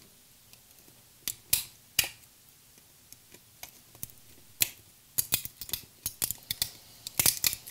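Flush cutters snipping PLA support material off a 3D print, each cut a sharp snap of breaking plastic: a few scattered snips at first, then a quick run of a dozen or so in the last two seconds.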